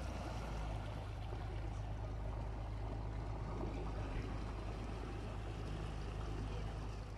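Canal cruise boat's engine running with a steady low hum, with water rushing along the hull.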